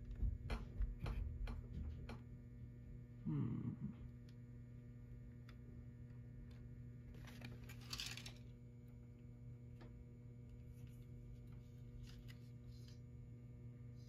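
Steady low electrical mains hum, with a few sharp clicks of the plastic annunciator housing being handled in the first two seconds, a brief low sound about three seconds in, and a short rustle about eight seconds in.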